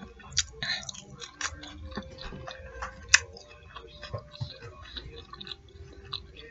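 A person chewing fried fish nuggets close to the microphone: irregular small crunches, mouth clicks and smacks. A single sharp click about three seconds in is the loudest.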